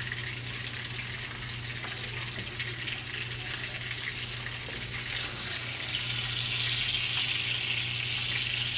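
Salmon and mahi-mahi pieces frying in a skillet of olive oil, butter and garlic: a steady sizzle that grows louder about six seconds in.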